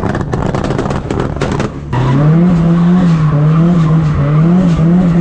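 Drift car's engine at high revs, its pitch swinging up and down about every half second as the throttle is worked through a slide, with tyre squeal, heard from inside the cabin. Before that, a rougher, rattly engine-and-road noise that cuts off about two seconds in.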